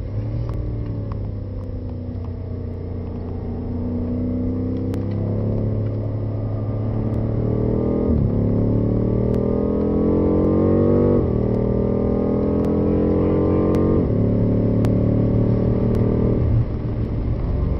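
BMW M5 engine heard from inside the cabin. The pitch falls as the car slows, then the engine pulls hard through the gears: three rising climbs, each ended by a quick upshift with a sudden drop in pitch, about eight, eleven and fourteen seconds in. Near the end the sound drops off suddenly as the driver lifts off to brake.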